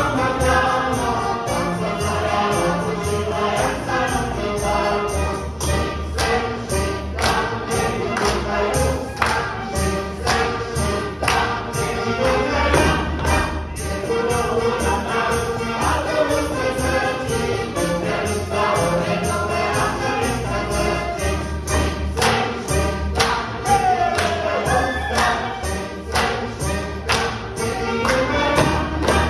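Slovak folk song sung by a group of voices with folk band accompaniment, a stepping bass line under it and sharp beats keeping the rhythm about two to three times a second.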